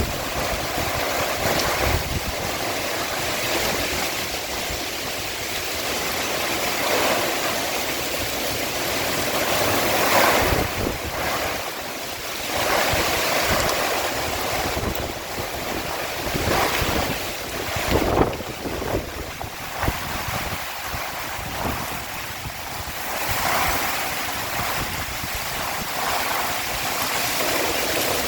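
Storm wind blowing hard in surging gusts, buffeting the microphone with low rumbles.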